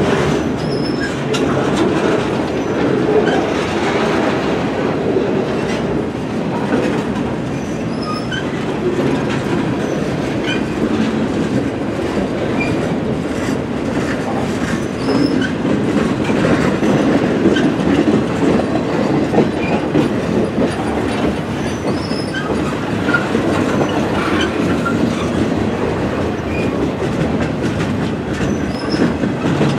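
Loaded freight flatcars rolling past close by: a steady rumble of steel wheels on the rails with clicking over the rail joints and a few faint high squeaks from the wheels.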